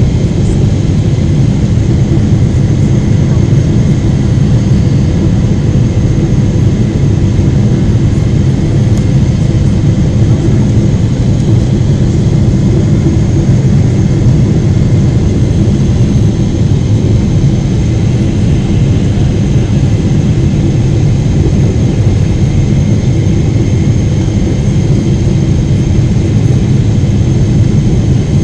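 Steady cabin noise of a Boeing 777-300 airliner on approach, heard inside the cabin beside the engine: a loud, low jet-engine and airflow roar with faint steady whining tones above it.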